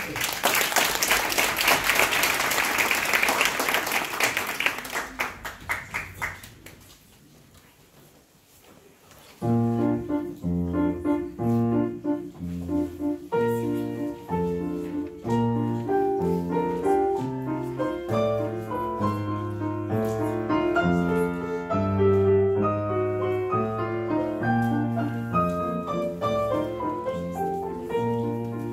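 Audience applause that fades out after about six seconds. After a short hush, a grand piano starts a piece about nine seconds in and plays on steadily.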